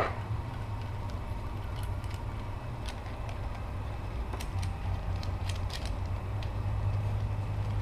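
Scattered light clicks of aluminium AN hose-end fittings being handled and threaded together by hand, over a steady low hum.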